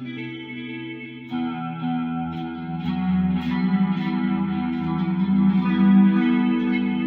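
Fender Thinline electric guitar played clean on its middle and bridge pickups together: ringing chords and notes that turn fuller and louder about a second in.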